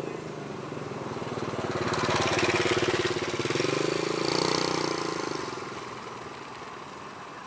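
Aircraft engine noise passing by: it grows louder for about two seconds, holds for about three, then fades away, with a fast even beat running through it.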